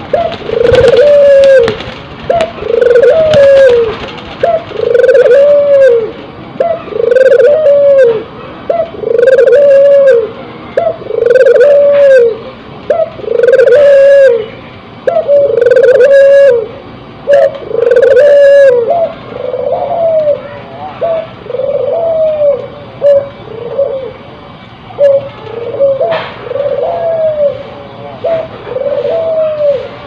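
A Barbary dove (puter) courtship-cooing over and over, one rolling arched coo about every second and a half. After the first two-thirds the coos come shorter and more broken.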